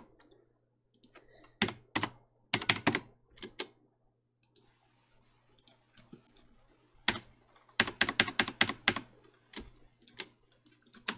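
Computer keyboard being typed on in short bursts with pauses between: a few keystrokes around two and three seconds in, and a quick run of keystrokes around eight to nine seconds in.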